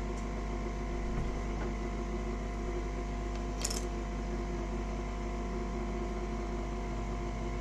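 A steady machine hum and whir with several fixed tones, like a fan or motor running without change, and one brief hiss about three and a half seconds in.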